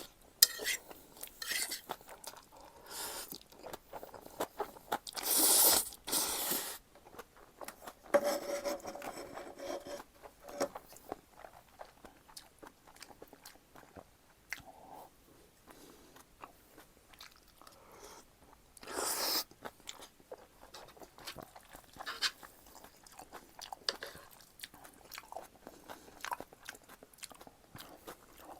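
Close-miked eating of Chapagetti black-bean noodles and green onion kimchi: steady chewing and crunching with many small wet clicks, and a few longer, louder noisy bursts about 5 to 6 seconds in and again about 19 seconds in.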